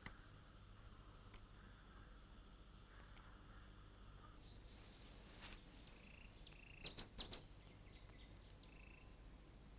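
Faint steady trilling of night insects, giving way about halfway through to small birds chirping, with three loud, sharp chirps in quick succession just past the middle.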